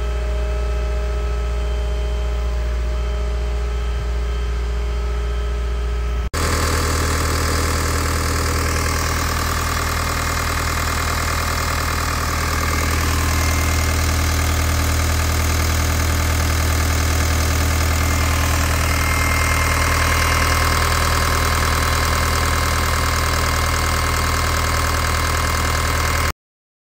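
Liebherr A 309 Litronic wheeled excavator's diesel engine running steadily. It is heard first from outside the machine as a low hum. About six seconds in it switches to close up at the open engine bay, much louder and fuller, and it rises a little further on. It cuts off abruptly near the end.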